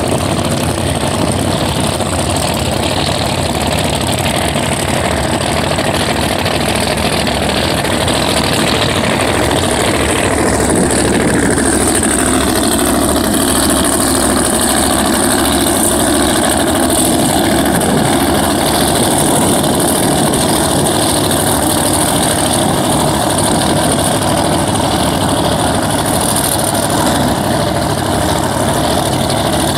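Modified drag-race car engines running loudly at the starting line. About ten seconds in, a high whine drops in pitch and then holds steady over the engine noise.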